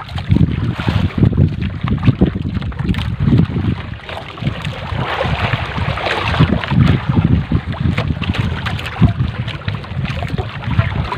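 A wet trammel net hauled by hand over a boat's side, with water splashing and dripping off the mesh and lapping at the hull. Wind buffets the microphone with an uneven low rumble.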